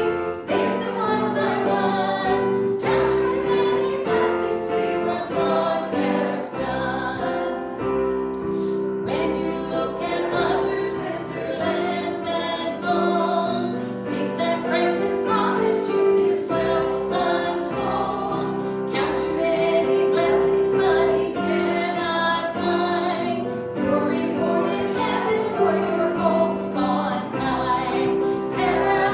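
Congregation singing a hymn together, many voices over a sustained instrumental accompaniment.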